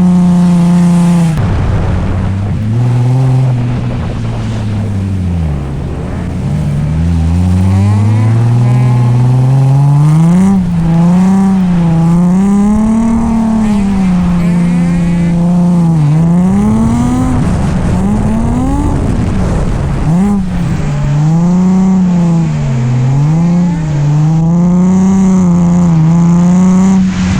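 Nissan 350Z's V6 engine revving hard under drift throttle. The pitch drops sharply early on, sinks low for a few seconds and climbs back, then holds high and keeps swinging up and down as the throttle is worked.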